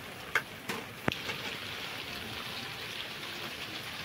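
A few light clicks and taps in the first second or so, from a spoon and spice containers against a steel mixing bowl, over a steady, even, rain-like hiss.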